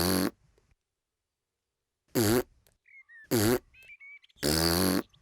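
Cartoon piglet's voiced hiccups, four short 'hic' sounds, the last three about a second apart: the hiccups that the cure has not stopped.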